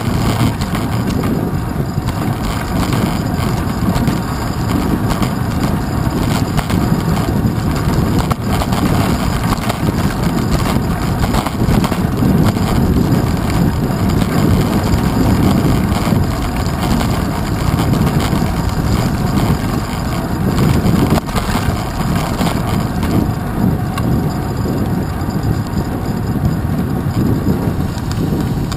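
Steady low rumble of wind and road vibration from a bicycle riding on wet pavement, picked up by a handlebar-mounted GoPro Hero 2.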